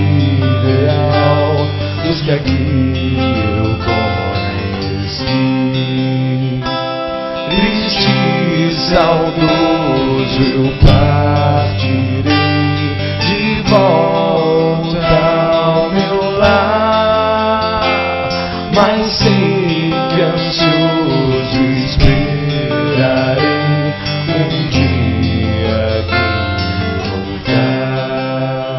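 Background music: a song with strummed acoustic guitar and a singing voice, played over the footage.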